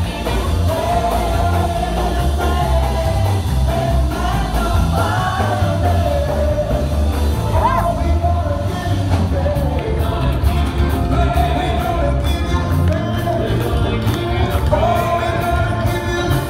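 Live church music played loud through PA speakers: a band with heavy bass under a singer holding long, drawn-out notes.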